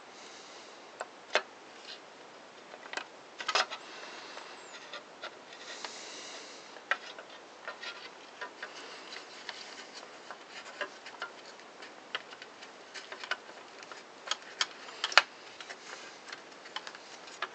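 Irregular light clicks and taps as the plastic and metal parts of a Makita circular saw are handled and fitted together by hand. The sharpest click comes about fifteen seconds in.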